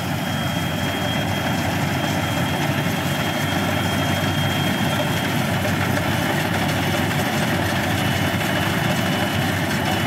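Maxxi Bimo combine harvester running steadily as it cuts and threshes rice: an even engine-and-machinery drone with a thin, steady high whine over it.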